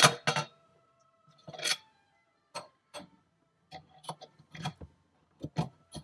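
Irregular sharp clicks and knocks of a cover piece being handled and pushed into place by hand. There are about a dozen taps, the loudest two at the very start, and a faint ringing hangs after some of them.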